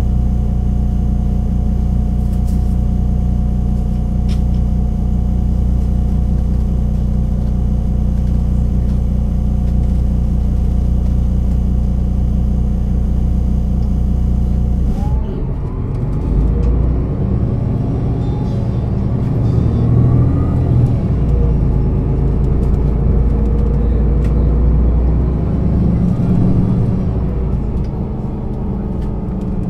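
Solaris Urbino 12 III city bus's diesel engine running steadily at one pitch. About halfway through it changes abruptly, and the bus accelerates, the engine note rising and dropping back several times as it shifts up through the gears.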